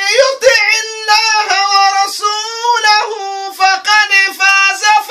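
A high-pitched voice, child-like, singing solo a slow, ornamented melody of held notes with bends in pitch.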